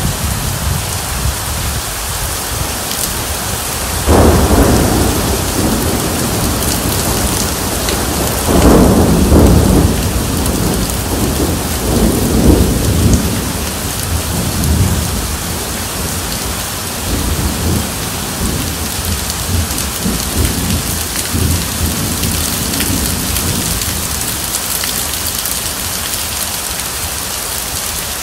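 Heavy rain falling steadily, with rolling thunder: a sudden crack about four seconds in, louder rumbles around nine and twelve seconds, then smaller rumbles dying away.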